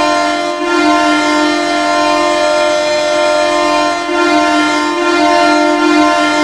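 Goal horn sounding: a loud, steady air-horn chord of several tones, dipping briefly twice, about half a second in and again about four seconds in.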